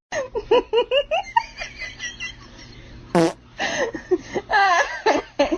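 A person laughing in quick repeated bursts, with a short sharp noise about three seconds in.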